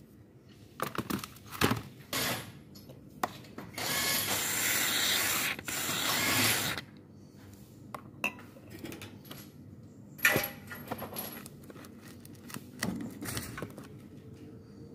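Aerosol cleaner sprayed through a straw nozzle into a throttle body: two hissing sprays, about three seconds in all, near the middle. Before and after come sharp clunks and taps of the metal throttle body being handled in its tray.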